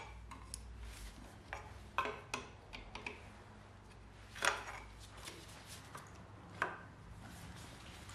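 Scattered metallic clicks and knocks from a wrench working the mounting bolts of a Saab 900 engine's power steering pump, with the loudest knock about halfway through and another a couple of seconds later, over a low steady hum.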